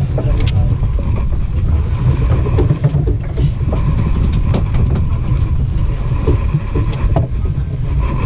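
Boat engine running steadily, a continuous low rumble with scattered light knocks and clicks over it.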